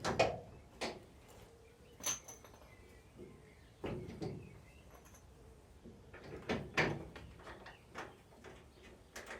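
Scattered metallic clicks and knocks of hand tools and bolts while a car's front subframe is bolted up, including a short ringing chink about two seconds in, a dull knock about four seconds in, and a quick cluster of clicks around seven seconds in.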